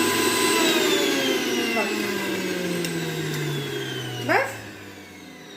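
Sujata mixer grinder's motor whining at full speed, then winding down after being switched off, its pitch falling steadily from about half a second in and fading away. A short rising squeak is heard about four seconds in.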